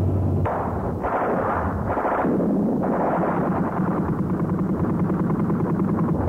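A loud, continuous rumbling roar of a moving vehicle that shifts in tone every second or so.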